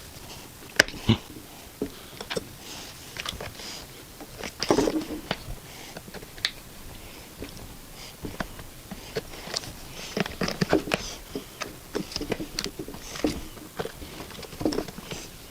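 Irregular plastic clicks, knocks and rustling from hands working on a Henry vacuum cleaner's plastic top housing during switch removal.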